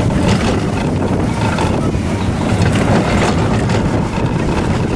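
Roller coaster train rolling along its track, a steady rumble of wheels with light clattering, and wind buffeting the microphone as it moves.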